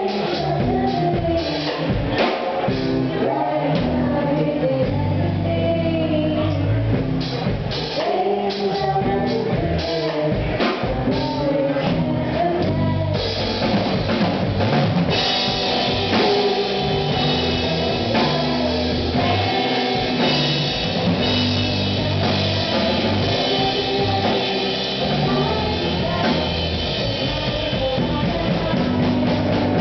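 Live rock band playing: electric guitars, bass and drum kit. About halfway through, the cymbals come in brighter and the band's sound gets fuller.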